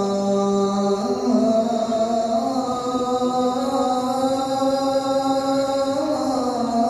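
A male muezzin chanting the adhan, the Islamic call to prayer, in long held notes that step up and down in pitch.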